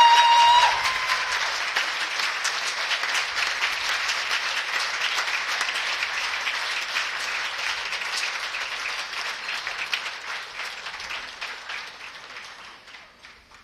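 Audience applauding, a dense patter of many hands clapping that gradually fades away toward the end. In the first second a loud steady high tone sounds and then cuts off.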